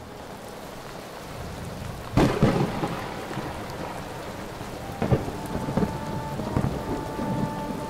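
Steady rain falling, with a loud crack of thunder about two seconds in and several smaller thunder cracks later.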